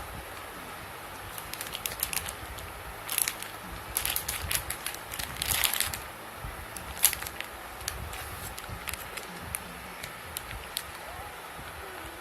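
Handling noise as the toys are handled: scattered crackles and clicks in small clusters, with one sharp click about seven seconds in and fewer toward the end.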